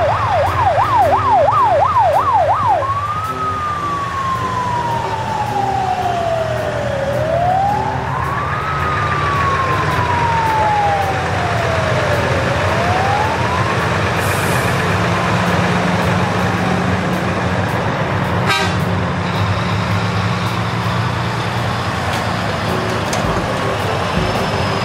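Electronic fire-truck siren of a toy fire truck: a fast yelp sweeping up and down about three times a second for the first few seconds, then changing to a slow wail that rises and falls over several seconds and stops a little past halfway. A single click comes near the three-quarter mark.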